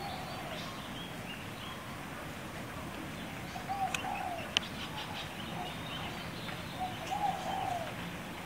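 Kalij pheasant giving a series of soft, low, cooing calls, short notes that rise and fall, repeated every second or so, with a longer run of them near the end.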